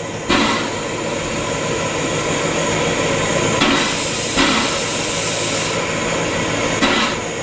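Württemberg T3 0-6-0 steam tank locomotive starting away slowly with its train: a few separate exhaust chuffs at uneven intervals, and a loud hiss of steam from about four to six seconds in.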